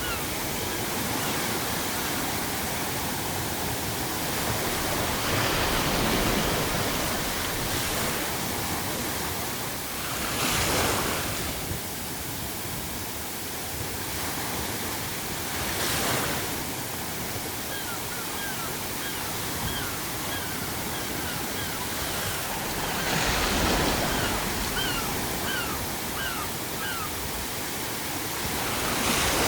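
Ocean waves breaking on a shore every five to seven seconds over a steady hiss of added pink noise. Gulls call in runs of short, quickly repeated cries, briefly at the start and again through the last ten seconds or so.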